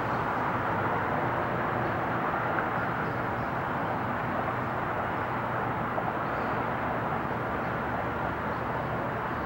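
Airbus A320 jet engines heard from the ground as the airliner descends on approach with its gear down: a steady rushing roar that eases slightly near the end.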